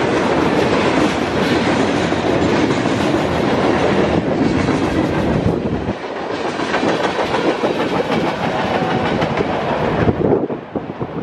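Freight train cars rolling past at speed: a steady rumble with the clatter of steel wheels on the rails. It eases off about ten seconds in as the last cars go by.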